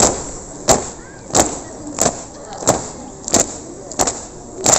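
A steady beat of sharp knocks at an even pace, about three every two seconds, each with a short ringing tail.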